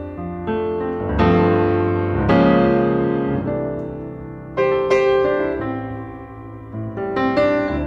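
Piano music, with chords and melody notes struck and left to ring out.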